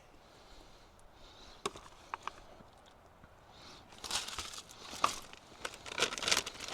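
Crinkling of a plastic food packet being handled, starting about four seconds in and growing louder, after a few light clicks.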